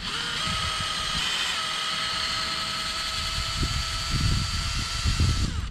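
Cordless drill running a wire brush inside a rusty carburetor float bowl: a steady motor whine with rough scraping as the brush scrubs the corrosion off the bowl. The whine winds down and stops just before the end.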